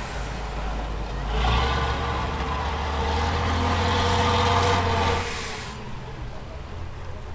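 8x8 trial truck's turbo-diesel engine working hard under load as the truck climbs out of a mud pit up a steep bank. It gets louder about a second in, holds steady, then eases off a little after five seconds.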